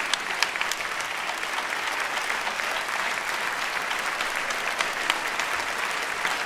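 Large audience applauding steadily: a dense mass of handclaps, with individual sharp claps standing out.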